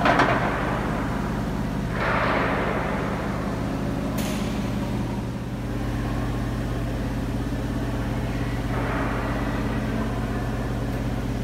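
Colliery winding engine running in its engine house: a steady low mechanical hum, with a hissing rush that swells and fades at the start, again about two seconds in, and again around nine seconds in.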